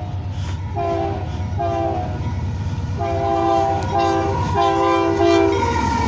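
Union Pacific AC4400CW diesel locomotive's Nathan K3LA three-chime air horn sounding five blasts: two short, one long, one short, then one long. A steady low rumble of the diesel and the train runs underneath as the locomotive comes up alongside near the end.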